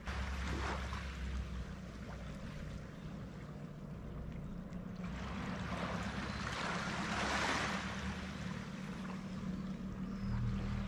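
A boat being hauled up out of the water into a seaside boathouse: a low steady hum under a rushing, scraping noise that swells and peaks about seven seconds in.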